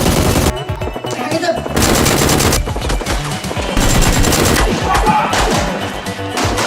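Rapid automatic gunfire in long, dense bursts, a dubbed combat sound effect, with music underneath.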